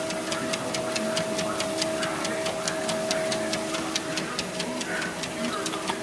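Treadmill running with a steady motor hum and a rapid, even ticking, about four to five clicks a second, as a small terrier walks on the moving belt.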